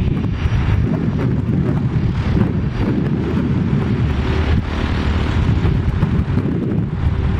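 Low, steady rumble of a Raytheon Hawker 800 business jet's twin TFE731 turbofan engines as it taxis, mixed with wind buffeting the microphone.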